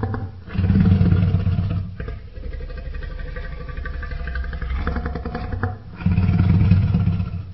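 Tyrannosaurus rex roar sound effect: a deep, rumbling growl that swells into two loud low roars, one about a second in and one near the end, each lasting about a second and a half.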